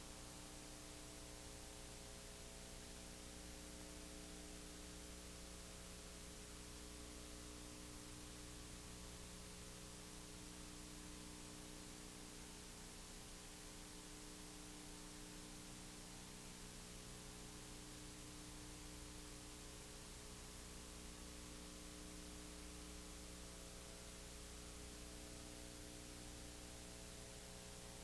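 Near silence: a steady electrical hum with hiss, with no machine strokes or other events.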